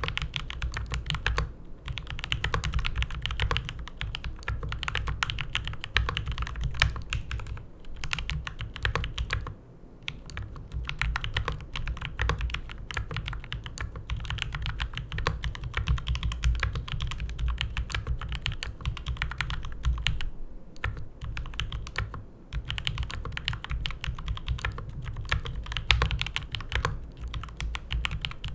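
Fast, continuous typing on a Keychron K2 hot-swappable mechanical keyboard: a dense run of key clacks with a few short pauses.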